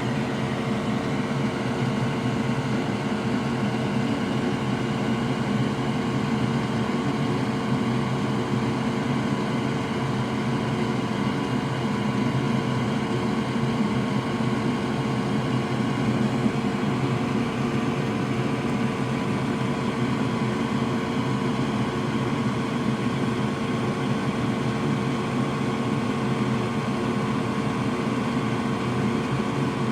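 Steady mechanical hum and whir of a running fan or air-handling unit, unchanging throughout, with a constant faint tone in it.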